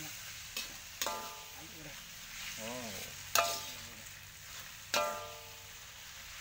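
Mie golosor noodles sizzling as they are stir-fried in oil in a wok, with a spatula knocking and scraping against the pan; three of the strikes ring out with a metallic clang, about a second in, halfway through and near the end.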